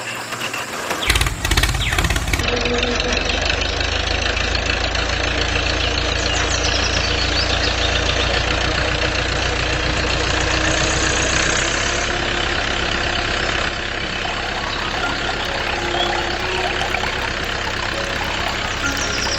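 A motor running steadily with a low hum, easing slightly near the end.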